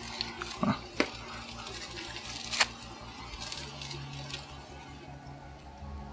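A few light crinkles and clicks from the foil wrapper of a block of butter being handled as pats are laid on chicken thighs in an aluminium tray, over a faint steady hum.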